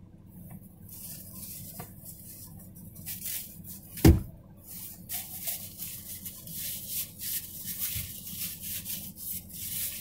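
Paper towel rustling, then a single loud thump about four seconds in. After it come quick, repeated rubbing strokes of the paper towel against a glossy ceramic mug, wiping off dust.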